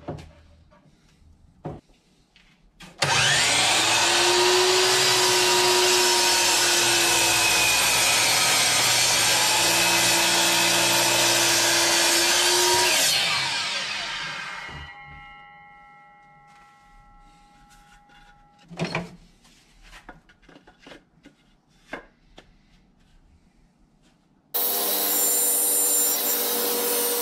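Power miter saw running for about ten seconds as it cuts through a wooden board, its motor pitch sagging while the blade bites, then winding down. A sharp knock follows a few seconds later. Near the end a table saw is heard running steadily as it rips wood.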